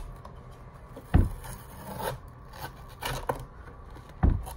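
A thin fillet tool scraping and rasping as it is worked between the Velcro layers under a plastic Fishbones concave pad on a Onewheel footpad, with a few sharp knocks, the loudest about a second in and again near the end.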